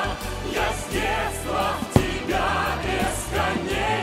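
Choral music with massed voices singing, and one sharp bang about two seconds in from a firework burst.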